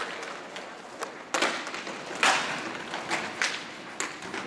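A handful of sharp knocks from hockey sticks and a puck during inline hockey play, the loudest about two seconds in.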